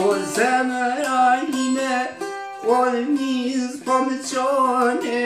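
Çifteli, the two-stringed Albanian long-necked lute, played with rapid plucking over a steady drone string. A man's voice sings a folk-song melody over it in bending, half-second phrases, breaking briefly twice.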